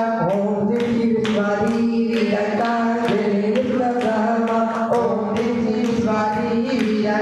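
Several voices singing a devotional Jain chant through microphones, over a steady held drone tone.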